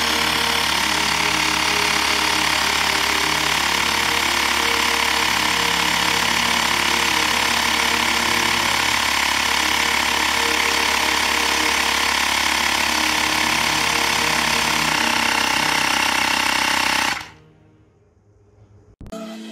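Xiaomi Mijia portable electric air pump running: a steady buzzing small-compressor noise that cuts off suddenly about seventeen seconds in.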